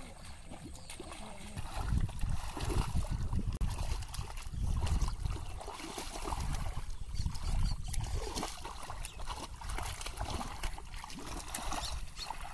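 Shallow muddy water sloshing and trickling as hands grope through the flooded paddy mud, with uneven low rumbling bumps from about a second and a half in.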